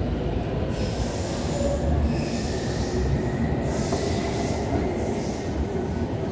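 Steady low rumble with patches of high hiss and a faint squealing tone, typical of a metro train running through an underground station.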